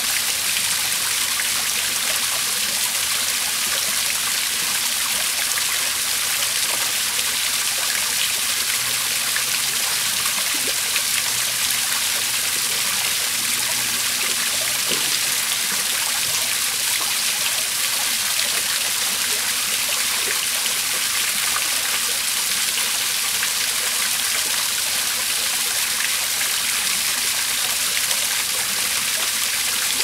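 Koi pond waterfall splashing steadily into the pond: an even, unbroken rush of falling water.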